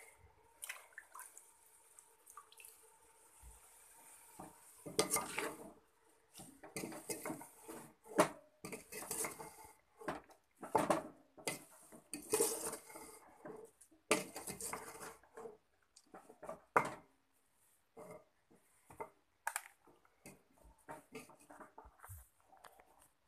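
A spatula scraping and knocking against the inside of an aluminium cooking pot as fenugreek leaves are stirred, in irregular strokes that grow busier from about five seconds in.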